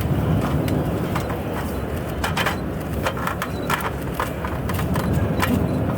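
Camera shutters clicking in quick, irregular runs from several cameras, over a steady low background hubbub.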